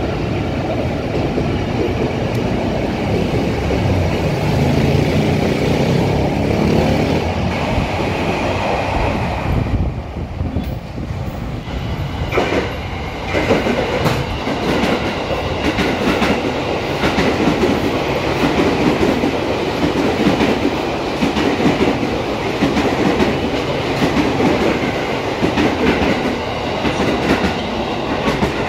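Electric commuter trains at a station platform. A train's rumble dies away about ten seconds in, and then a second train runs along the platform with a steady clickety-clack of its wheels over the rail joints.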